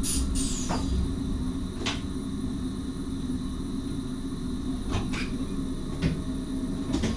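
Steady hum inside a Sprinter (SGMM) electric train's driver's cab, with about seven sharp clicks and knocks scattered through it and a brief falling high squeak in the first second.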